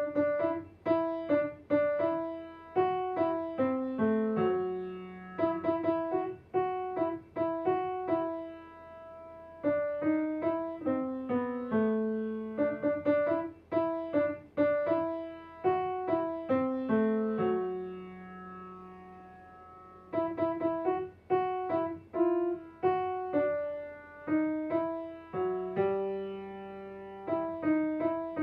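Kawai grand piano played as a simple tune of separate notes, each struck and fading. The notes come in phrases with short pauses between them, and the low line steps downward several times.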